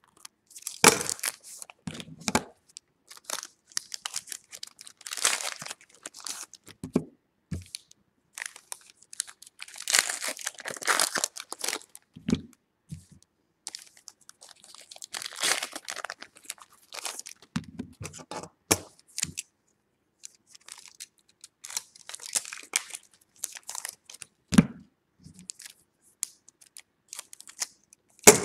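Baseball card pack wrappers being torn open and crinkled, in irregular rustling bursts a second or two long, with a few soft knocks as the cards are handled.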